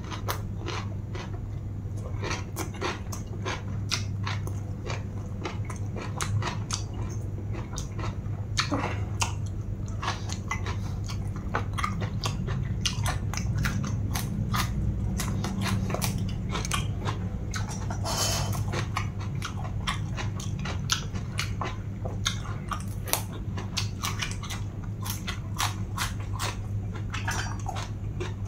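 Close-miked chewing with frequent crisp crunches and wet mouth clicks, a person eating raw vegetables and spicy pounded long-bean salad. A steady low hum sits underneath.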